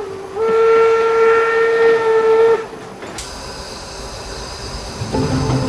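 Steam locomotive whistle blowing one long, steady blast of about two seconds, followed by a hiss of steam. Music starts near the end.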